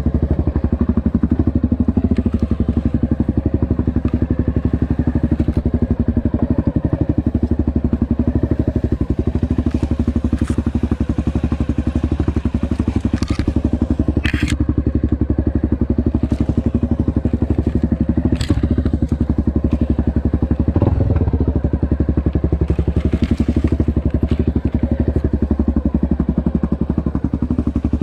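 Honda XRE 300 single-cylinder four-stroke engine running steadily under way on a dirt trail, with a few sharp knocks and clatters from the ride, about halfway through.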